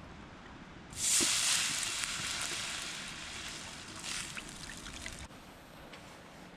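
Frankfurters sizzling, the sizzle starting suddenly about a second in and slowly fading, with a few pops, then cutting off abruptly near the end.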